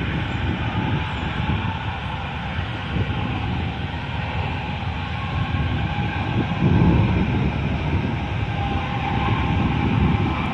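Semi truck driving down the highway: a steady low rumble of engine and road noise, swelling briefly past the middle.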